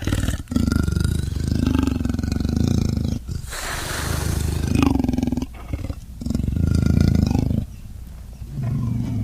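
A designed dinosaur (Proceratosaurus) vocalisation made of layered, pitch-modified animal recordings such as big cat, crocodilian and pig: a run of about four long, deep roars. The second call is more hissing and screechy.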